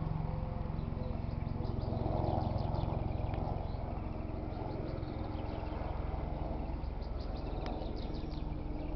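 Small birds chirping in quick, scattered bursts over a steady low outdoor background noise.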